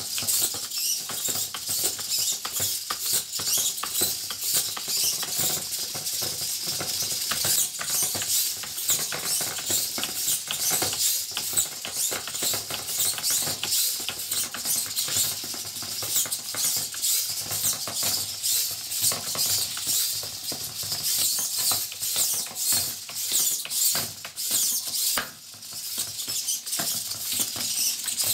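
Small hobby servo motors of a three-servo, 3D-printed crawling robot running in quick, jerky movements, with a steady clatter of plastic limbs tapping and scraping on a wooden floor. The clatter dips briefly near the end.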